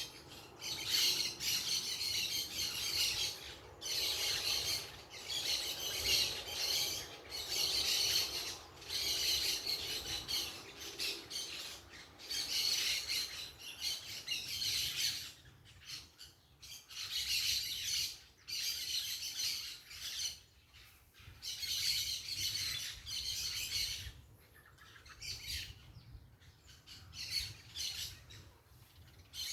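Parakeets chattering and squawking in repeated shrill bursts, several birds calling together. The calling thins out for a while in the second half, then picks up again.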